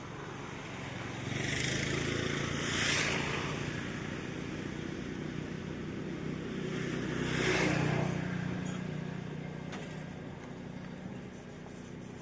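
Road traffic: vehicles passing by twice on the highway, each swelling up and fading away, over a steady low engine hum.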